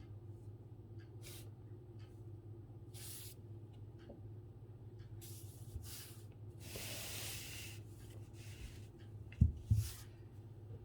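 Calligraphy brush sweeping across paper in a series of short hissing strokes, with one longer stroke about seven seconds in, over a steady low hum. Two dull thumps near the end are the loudest sounds.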